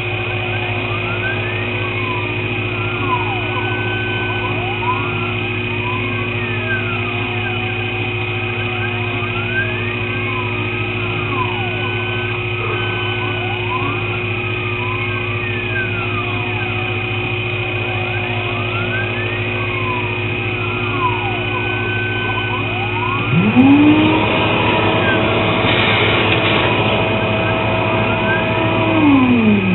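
Sherline CNC mill at work on machinable wax: a steady motor hum under whining stepper motors whose pitch glides up and down in repeated arcs as the axes speed up and slow down. About 23 s in, a louder whine rises and holds with a rush of noise, then falls away near the end.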